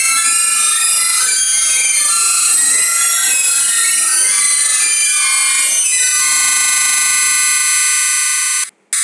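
Shrill, harsh electronic music track whose high notes change every fraction of a second. About six seconds in it settles on a held chord, which cuts out abruptly for a moment near the end.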